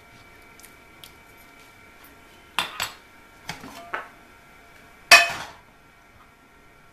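Metal kitchen utensils and cookware clinking and clanking, as a steel potato masher is put down against a glass pan lid. A few sharp knocks come between two and a half and four seconds in, and one louder clank with a brief ring comes about five seconds in.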